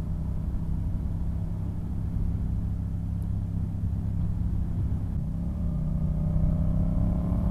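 Yamaha FZ-07's 689 cc parallel-twin engine running as the motorcycle is ridden at a steady speed, heard under a low rumble. About five and a half seconds in, its pitch starts to rise slowly as the bike accelerates.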